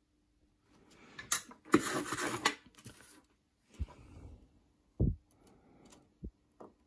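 Handling noise of a guitar push-pull pot and its pickup wires on a wooden workbench: rustling and scraping for a couple of seconds, then several short dull knocks on the bench.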